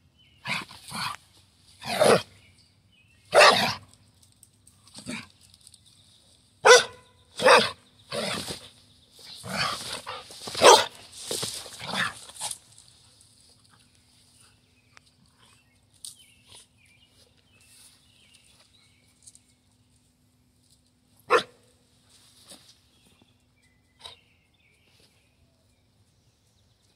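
Carolina dog barking in play, a string of short, sharp barks at irregular intervals for about the first twelve seconds. Then it goes mostly quiet, with one more loud bark about twenty-one seconds in and a couple of faint ones after.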